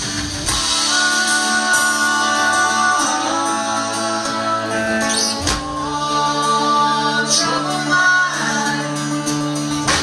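Live band playing a country song: strummed acoustic guitars, electric bass and drums, with vocals on long held notes.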